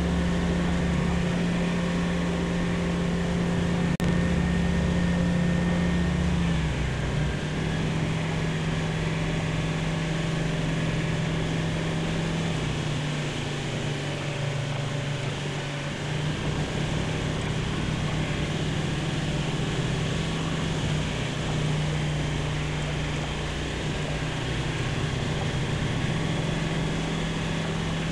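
Light aircraft's piston engine and propeller droning steadily in the cockpit, its pitch dropping slightly about six or seven seconds in.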